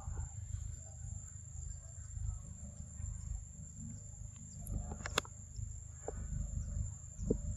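Forest ambience: a steady high-pitched insect drone over a low rumble, with a few sharp clicks, the clearest about five seconds in and another near the end.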